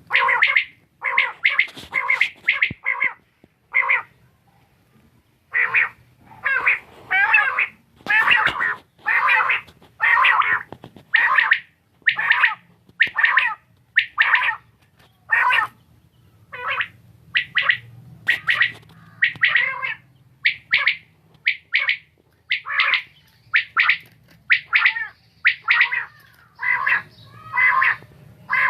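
Quail calling: short, harsh notes repeated about once or twice a second, with one brief pause, over a faint steady hum.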